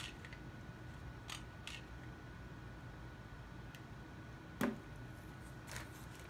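Faint clicks of a hot glue gun's trigger being squeezed as glue is laid around the puppet's skewer sticks, then a louder single knock about four and a half seconds in as the glue gun is set down on the table.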